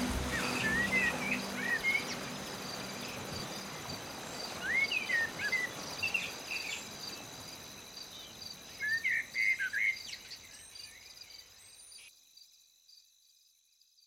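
Birds chirping in short clusters of quick notes over a steady high, cricket-like trill, with the last low notes of the music dying away in the first couple of seconds; everything fades out near the end.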